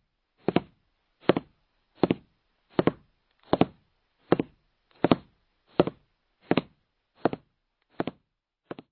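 A steady series of about twelve knocks, a little more than one a second, each a quick double knock, stopping just before the end.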